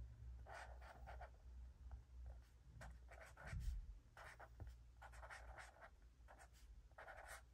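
Zebra Mildliner marker writing on paper by hand: faint, soft scratching strokes that start and stop as each letter is formed.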